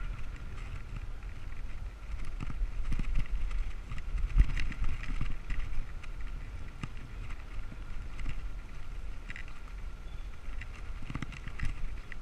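Riding sound from a camera on a moving bicycle in a group of cyclists: low wind rumble on the microphone with bicycle rolling and drivetrain noise, and scattered clicks and ticks throughout.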